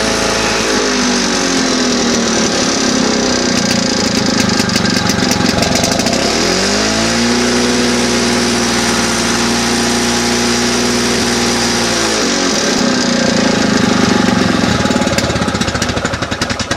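Victa lawn mower engine running on its freshly rebuilt plastic G4 carburettor after priming. It speeds up about seven seconds in, holds a higher steady speed for about five seconds, then drops back to a rougher, lower speed.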